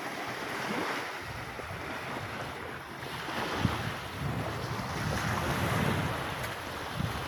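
Wind buffeting the microphone with low rumbles, over the steady wash of small waves on the shore.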